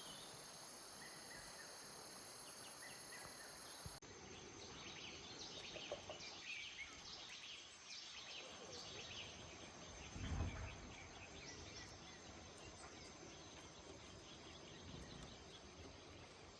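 Rainforest ambience: a steady high insect drone, then after an abrupt change about four seconds in, scattered short high chirps and a single low thump about ten seconds in.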